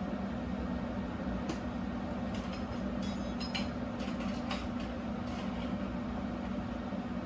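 Steady low mechanical hum, with a handful of light metallic clinks and taps of tools on metal in the middle of the stretch.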